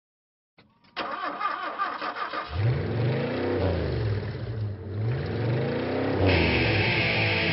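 Car engine starting: a second or so of cranking, then it catches about two and a half seconds in and is revved up and down in repeated waves. A steady higher-pitched noise joins near the end.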